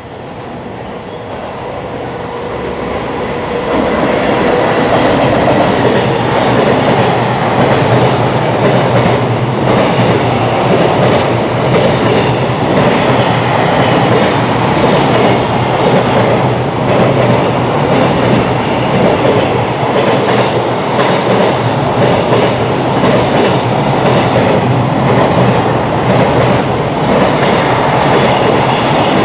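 Freight train of container flatcars approaching and passing at speed. The noise builds over the first few seconds, then holds as a steady loud rush of wheels with rapid clacking over the rail joints.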